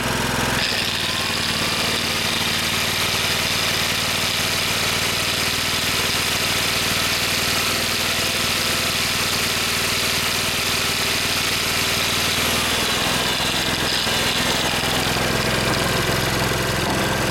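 Generator's Subaru engine running on wood gas under a heavy electrical load. About half a second in, an angle grinder switches on and adds a high steady whine, and the engine note drops as it takes the extra load; the engine note shifts again about 13 seconds in.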